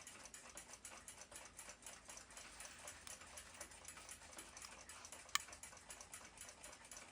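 Faint, rapid, even ticking of a clock, about five ticks a second, with one sharper click of metal on metal a little over five seconds in.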